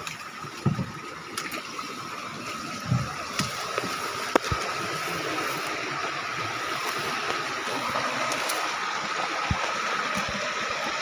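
Steady rush of flowing river water, growing a little louder, with a sharp click about four seconds in.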